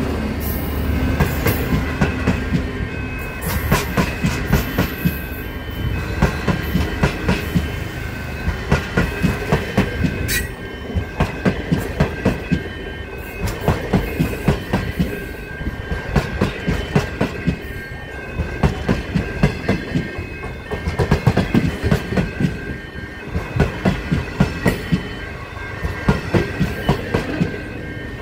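Stainless-steel passenger carriages of a long train rolling past close by. The wheels clatter over rail joints in repeated clusters of clicks, every couple of seconds, over a continuous rumble.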